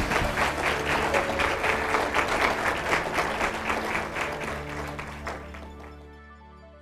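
Audience applauding over soft outro music with sustained notes. The applause dies away about five seconds in, and the music fades out toward the end.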